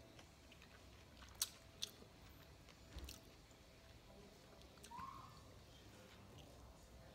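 Faint chewing of burgers, with a few short sharp mouth clicks, two close together about a second and a half in and another about three seconds in.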